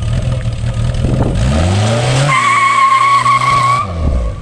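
A car engine running, then revving up about a second in, followed by tyres squealing for about a second and a half. The squeal cuts off suddenly and the engine note drops back.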